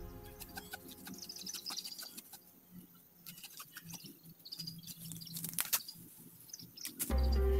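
A curved blade cutting and scraping at the base of a bamboo clump among dry leaves: a scatter of short clicks, chops and scrapes, with faint bird chirps over it. Background music comes in loudly near the end.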